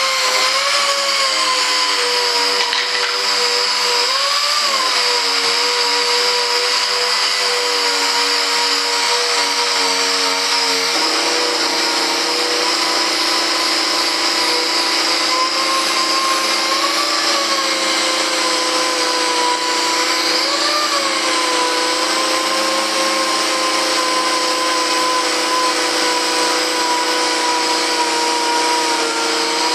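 Dual-action (DA) sander running steadily, trimming and sanding the edge of a model jet's fuselage, with a motor whine that rises briefly in pitch three times.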